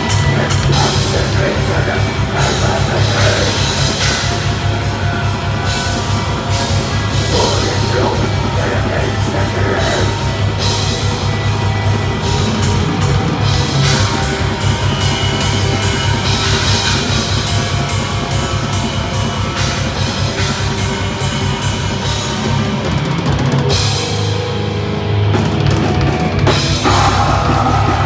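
Black metal band playing live through a club PA: rapid, dense drumming with cymbals under distorted guitars. Around 24 seconds in, the drums and low end drop out briefly, then the full band crashes back in about two seconds later.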